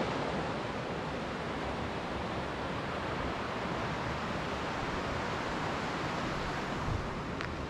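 Steady rush of a mountain creek's flowing water, an even hiss without pitch, with a soft thump about seven seconds in.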